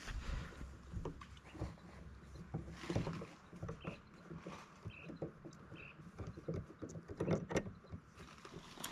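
Irregular light knocks and rattles of gear being handled and fitted on a plastic angling kayak.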